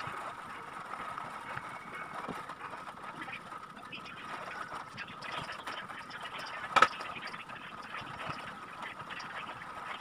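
Quiet rubbing and soft ticks of a wooden rolling pin and hands working pie crust dough on a floured glass-topped table, over a faint steady high-pitched hum. One sharp knock stands out about seven seconds in, as a glass baking dish is handled over the dough.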